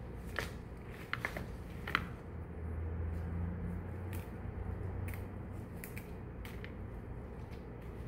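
Scattered light snips and clicks of hands working craft materials, with a few close together about a second in and more spread out later.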